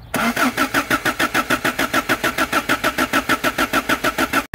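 Toyota 22RE 2.4-litre four-cylinder engine being cranked by the starter motor: an even chugging of about seven compression pulses a second without catching, which cuts off suddenly near the end. It is a hard start, which the owner suspects comes from a failing sensor (coolant temperature or MAF) or from water in the distributor cap.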